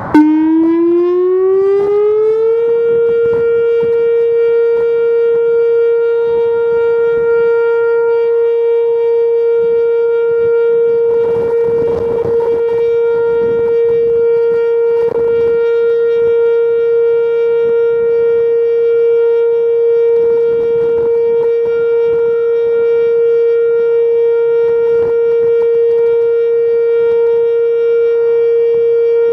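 Whelen 2720 electronic outdoor warning siren sounding its steady Alert tone: the pitch rises over the first two to three seconds, then holds one steady tone. Wind buffets the microphone at times.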